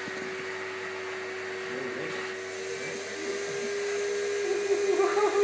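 Vacuum cleaner running with a steady motor hum. Just before the end, a short wavering vocal sound rises and falls over it.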